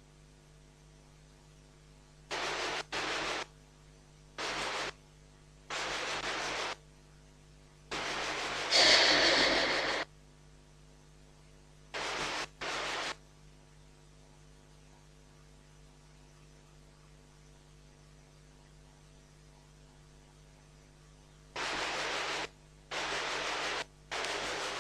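Steady electrical hum from the sound system, with short spells of hiss that switch on and off abruptly about ten times, the longest and loudest near the middle.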